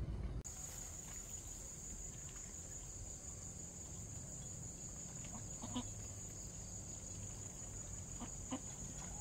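A steady, high-pitched insect drone, unbroken, starting just after a cut; a couple of faint short knocks come through about six seconds in and again near the end.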